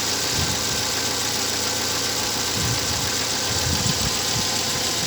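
Petrol car engine idling steadily with a high idle (fault code P0507), its throttle stop screw just backed off slightly to bring the speed down.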